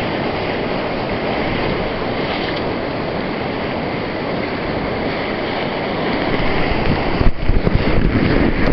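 River rapids rushing, a steady roar of whitewater. Near the end wind rumbles on the microphone, louder and uneven, with a few sharp knocks.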